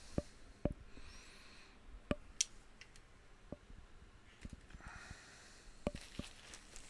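Scattered light knocks and clicks, about seven spread over several seconds, from steel canopy-tent frame parts being handled.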